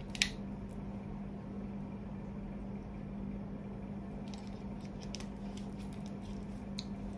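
Quiet room tone with a steady low hum, a sharp click just after the start and a few faint ticks about two-thirds of the way through.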